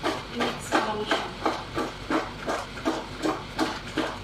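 Steamed vegetables being tossed again and again in a steamer basket: a short rattling knock about three times a second as the pieces land back in the pot.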